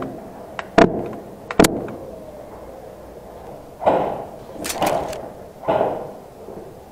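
Two sharp shots about a second apart from a suppressed Tokyo Marui Mk.23 SOCOM gas airsoft pistol. About two seconds later come three duller knocks and scuffs.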